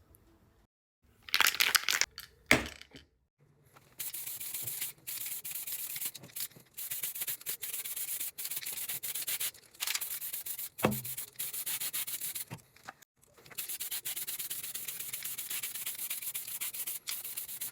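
Epoxy primer being sprayed onto bare sheet metal: a steady high hiss in long passes with brief breaks, starting about four seconds in, after a couple of short bursts and a knock.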